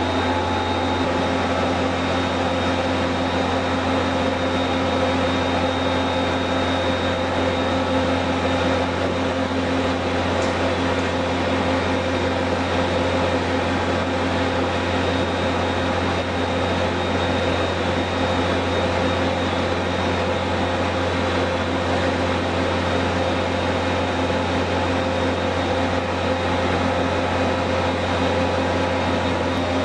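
Waste rendering plant machinery running steadily: a constant motor hum with several steady whining tones over a noisy mechanical rush.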